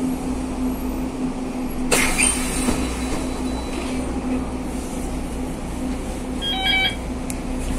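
Inside a city bus moving slowly in traffic: the bus's engine and road noise make a steady hum throughout. A sudden sharp sound comes about two seconds in, and a short cluster of electronic beeps sounds near the end.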